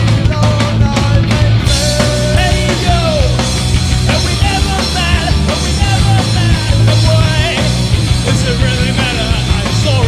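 Background music: a loud rock song with a singing voice over a full band.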